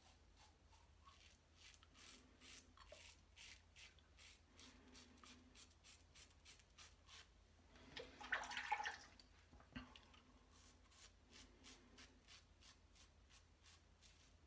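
Parker 69CR open-comb safety razor with a Voskhod blade scraping through lathered stubble in quick, faint strokes, several a second. About eight seconds in comes a louder rush of water lasting about a second, as the razor is rinsed.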